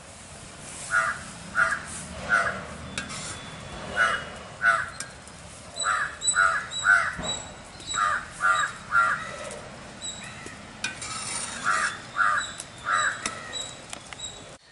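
Crows cawing repeatedly, in short runs of two or three caws.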